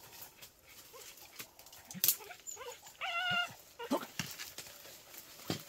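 Hunting dog whining, with a short wavering high cry about three seconds in and briefer yelps around it. Sharp snaps and rustling of twigs and branches come from someone pushing through dense bush.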